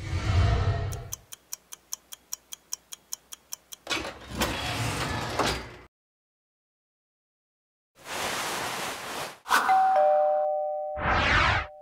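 Animation sound effects: a low whoosh, then a run of about a dozen quick ticks, a couple of swishes, and near the end a two-note descending ding-dong chime followed by a short swish.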